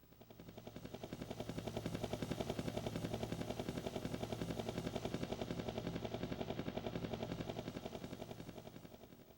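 Synthesized sound effect from a Kumyoung Chorus 88 karaoke machine's Roland SC-88 sound module: a rapid, even pulsing of about ten beats a second that swells up over the first second or so, holds, and fades away near the end.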